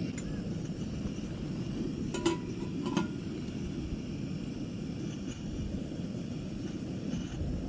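Steady low rumble of motorcycle riding noise, engine and wind on the microphone, with two sharp metallic clicks about two and three seconds in.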